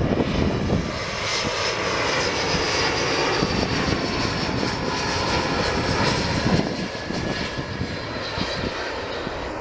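Turbofan engines of a Royal Jordanian Embraer regional jet on landing approach: a steady jet roar with a high whine that slowly falls in pitch, easing off a little near the end as the aircraft passes.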